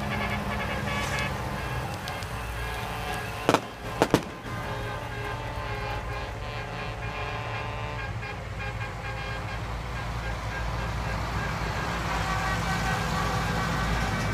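Decorated buses and vans driving past in a parade, engines running, with steady horn tones sounding over the traffic. Three sharp bangs come close together a few seconds in.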